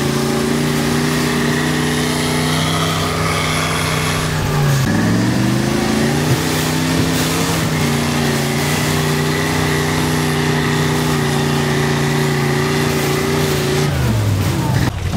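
Off-road trial truck's engine running hard at high revs. The revs dip sharply about five seconds in, climb back up and hold, then drop away near the end.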